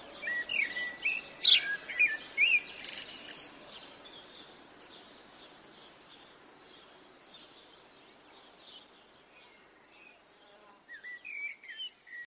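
Small birds chirping: a run of short rising and falling chirps in the first few seconds, then more chirps near the end, over a faint steady hiss that slowly fades away.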